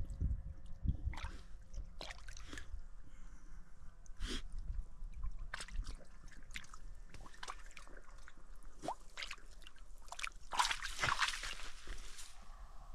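A dog wading in a shallow muddy pool: scattered sloshing, dripping and squelching as its paws move through water and mud. Near the end comes a louder burst of splashing as it climbs out.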